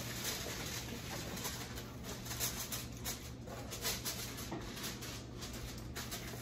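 Aluminum foil crinkling in short, irregular rustles as it is pressed and crimped over the rim of a disposable aluminum baking pan, over a low steady hum.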